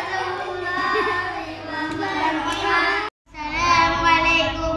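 Young children chanting together in unison in a drawn-out, sing-song voice. The sound cuts out for a split second about three seconds in, then sing-song children's voices pick up again.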